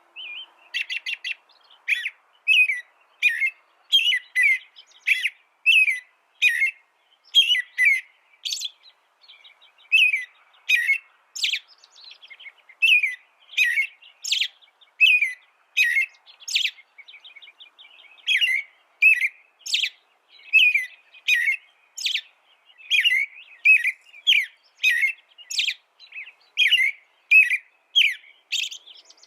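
A songbird singing: a long string of short, bright chirping notes at roughly two a second, broken now and then by quick trills.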